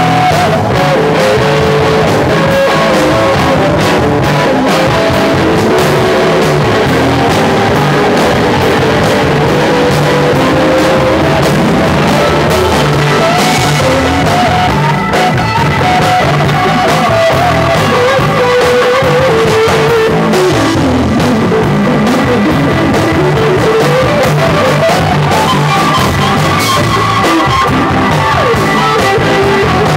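Live rock band playing, led by a Stratocaster-style electric guitar soloing. Its notes bend and wander, with one long slide down in pitch and back up again past the middle.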